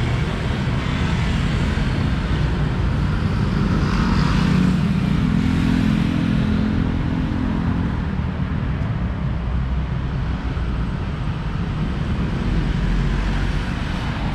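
Road traffic passing close by on a city street: cars and motorcycles driving past with steady engine and tyre noise. One vehicle's engine hum stands out from about five to eight seconds in.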